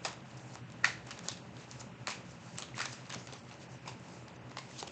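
A tarot deck being shuffled by hand, the cards giving a run of irregular clicks and snaps.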